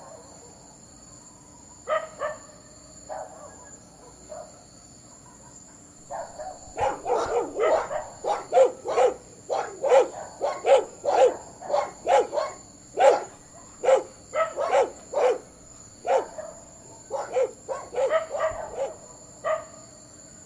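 A pack of street dogs barking loudly to drive off a lion. A few scattered barks in the first seconds, then a fast, continuous run of barking, a couple of barks a second, lasting about fourteen seconds.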